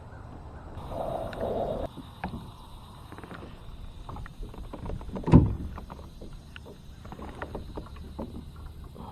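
Small knocks and clicks of someone moving about and handling gear in a fishing kayak, with a brief rustle about a second in and one much louder knock about five seconds in.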